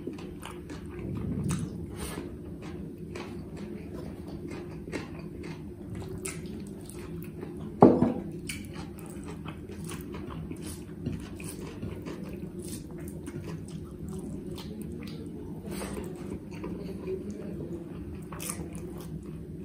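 Close-miked eating sounds of a man eating rice and curry with his hand: chewing, wet mouth clicks and smacks, and fingers working the rice, over a steady low hum. One sharper, louder sound comes about eight seconds in.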